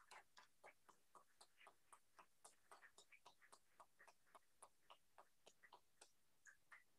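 Near silence, with very faint scattered hand claps at an irregular few per second: a small group applauding.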